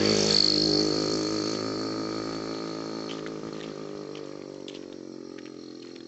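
An engine running at a steady pitch, loudest at first and fading gradually away.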